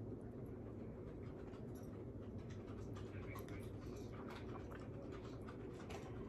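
Faint eating sounds: a plastic fork scraping and scooping macaroni and cheese on a plate, then soft chewing, as small scattered scratchy ticks over a steady low room hum.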